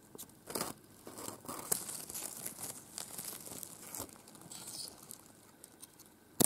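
Dry pine needles, fallen leaves and undergrowth rustling and crackling irregularly as someone moves through the forest floor, with one sharp click near the end.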